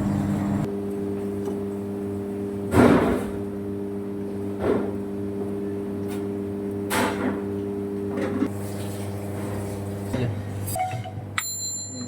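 A steady low mechanical hum with several sharp knocks or clatters, the loudest about three seconds in, and a short high beep near the end.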